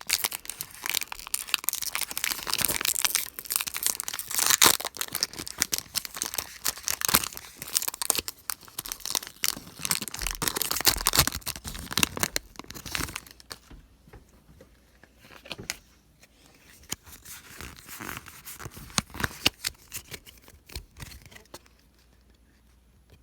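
Foil Pokémon booster pack wrapper being torn open and crinkled, dense crackling for the first dozen seconds or so, then only faint scattered rustles and clicks.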